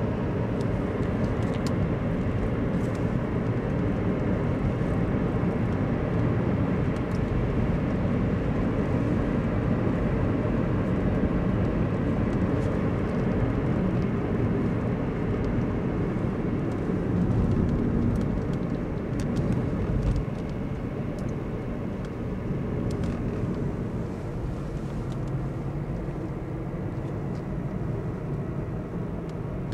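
Steady road and running noise of a car driving, heard from inside the cabin. It gets slightly quieter about twenty seconds in.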